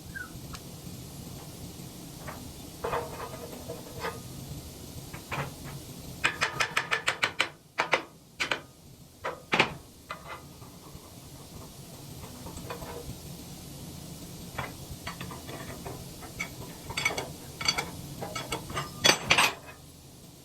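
Hand tools working on the steel parts of a wood chipper's anvil assembly: scattered metal clinks and knocks over a low steady hum. About a third of the way in comes a quick run of about a dozen clicks, and there is a cluster of louder knocks near the end.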